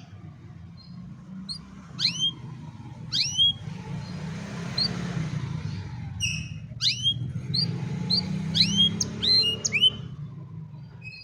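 Canary chirping in short bursts: clusters of quick, sharp notes that sweep down and then up, the loudest about two, three, seven and nine seconds in. A steady low rumble runs underneath, with a hiss that swells and fades in the middle.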